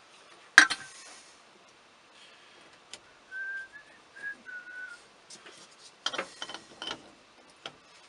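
Small parts on a steering column being handled: a sharp click with a short hiss about half a second in, then a run of light plastic-and-metal clicks and rattles near the end. In the middle, someone whistles a few soft notes.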